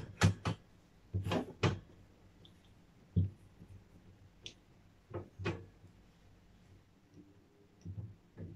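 Metal parts of a powder-coated wire dish rack knocking and clicking as a side frame is fitted into the base. The sharp taps come in small clusters: several in the first two seconds, one about three seconds in, a pair about five seconds in and a couple near the end.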